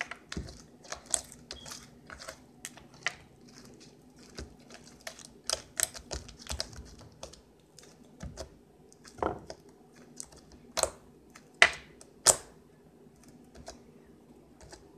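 Homemade slime being stretched, squeezed and pulled off fingers, making irregular sticky clicks and snaps, with a few louder ones toward the end.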